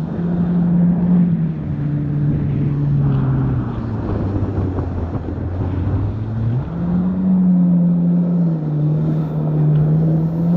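Yamaha FX HO WaveRunner jet ski engine running under way, with water and spray hissing around the hull. The engine note drops about three and a half seconds in and climbs again near seven seconds as the throttle changes.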